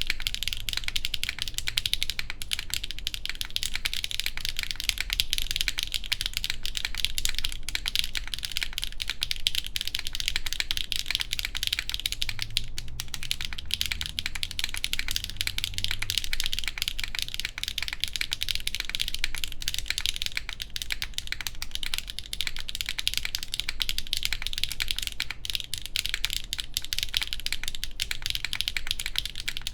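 Continuous fast typing on a Geonworks F1-8X V2 mechanical keyboard with HMX Macchiato switches, a full aluminium plate and GMK keycaps, all case screws fitted: a dense, even stream of keystrokes.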